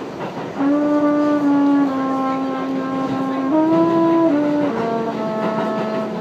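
Trombone playing a slow line of long held notes, starting about half a second in, stepping up briefly in the middle and settling on a long low note near the end.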